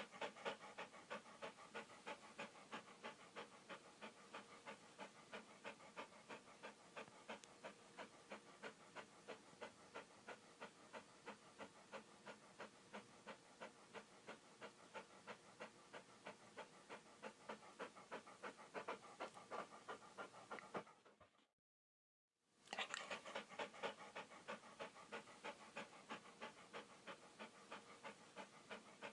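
Dog panting, a steady run of quick breaths at about three a second, which stops briefly a little over two-thirds through and then starts again.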